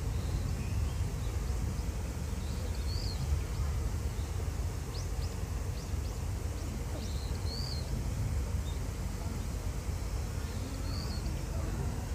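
Outdoor ambience: a steady low rumble, with faint high chirps three times, about four seconds apart, like a small bird calling.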